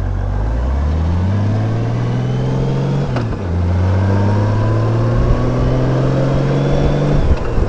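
Honda Gold Wing motorcycle engine accelerating, rising in pitch, then dropping as it shifts up a gear about three seconds in. It climbs again and shifts once more near the end.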